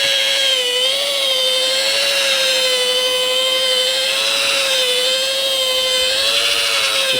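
Rotary polisher running on its lowest speed, buffing compound into car paint to cut out bird-dropping etching in the clear coat: a steady whine that wavers slightly in pitch as the pad is worked over the panel.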